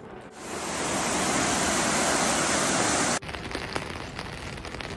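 Floodwater of a swollen creek rushing in a loud, steady wash. About three seconds in it cuts off abruptly and gives way to a quieter hiss with light ticks.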